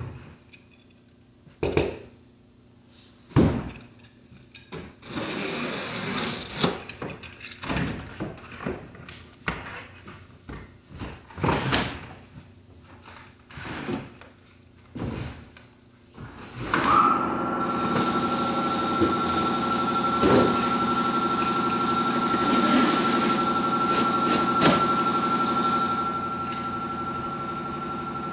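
A cardboard bicycle box being opened and unpacked: knocks and thumps, then scraping and rustling of cardboard and plastic wrap as the wrapped parts are pulled out. About two-thirds of the way in, a steady machine hum with a high, even whine starts and keeps going.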